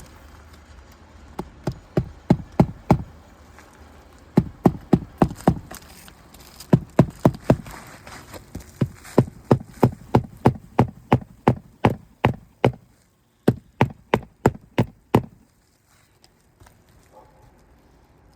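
Hammer striking an asphalt shingle roof in quick runs of blows, about two to three a second, that stop about fifteen seconds in. Each hit knocks loose granules that pour down the roof with a sound like a waterfall: the shingles are shedding granules under the pounding.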